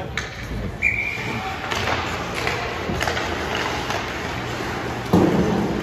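Ice hockey play in an echoing rink: skates scraping and sticks and puck clacking on the ice, with a louder thump about five seconds in.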